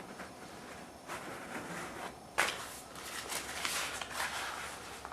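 Handling noise from working with the carpet materials: irregular rustling and scraping, with a sharp knock about two and a half seconds in.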